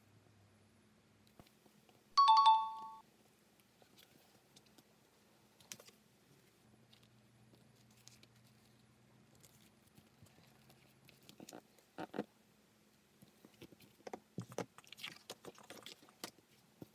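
Soft handling sounds of marking a paper pattern on crocodile leather with a pen and moving the template: scattered light taps, scrapes and rustles, busiest in the second half. About two seconds in, a single bright chime rings for under a second and dies away; it is the loudest sound.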